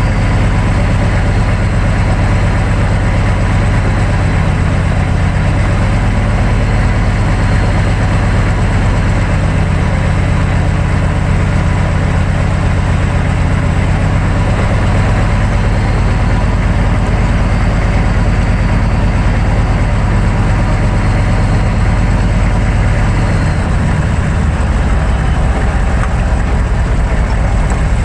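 Loud, steady low rumble of a 1999 GMC 3500 pickup's 6.5 turbo diesel and drivetrain, heard from under the truck by the rear axle. The low tones shift lower about three-quarters of the way through.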